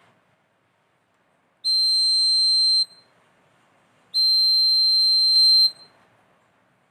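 Buzzer of a homemade laser security alarm sounding a steady, high-pitched beep twice, each a little over a second long, with about a second of quiet between them.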